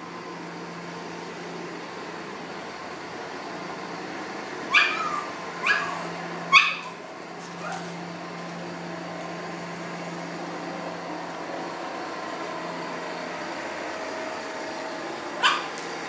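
Pug barking: three sharp, high yaps about a second apart, a softer one just after, then one more near the end, over a steady low hum.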